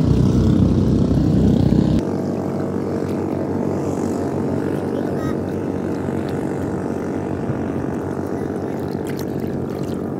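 Small boat engine running steadily. About two seconds in, its low rumble drops away and it runs on a little quieter.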